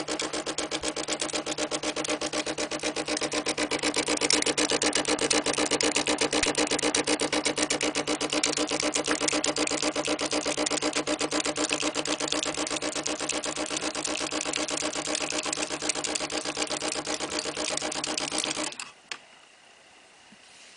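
Nespresso C190's water pump running with a steady rapid buzz as it pushes hot water out of the nozzle; it cuts off abruptly about two seconds before the end.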